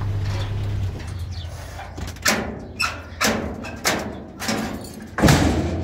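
A low steady hum dies away about a second in. Then come five or six knocks and scrapes, roughly half a second apart, the last the loudest.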